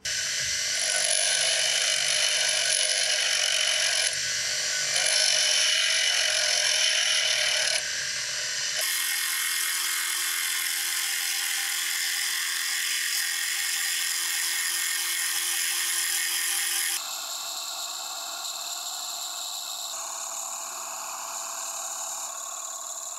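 Metal lathe running while a turning tool cuts an oak blank: a steady hiss of the cutting over the machine's whine. It comes in several spliced stretches that change abruptly every few seconds.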